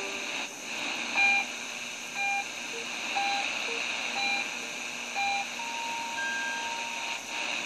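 Shortwave broadcast through a Tecsun PL-660 radio's speaker: five short beeps about a second apart, then one longer, slightly higher beep, over a steady hiss of shortwave static.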